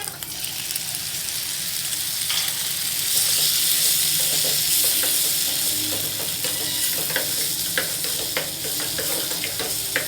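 Food frying and sizzling in a pan while a spoon stirs it. The sizzle grows louder from about two and a half seconds in and eases after about six seconds, with light clicks of the spoon against the pan.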